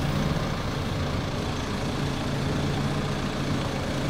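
Forklift engine idling steadily with a constant low hum.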